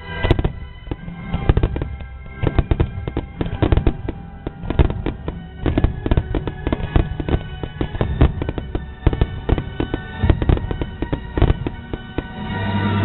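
Fireworks going off in a rapid barrage of many sharp bangs and crackles, with music playing alongside. Near the end the bangs thin out and the music gets louder.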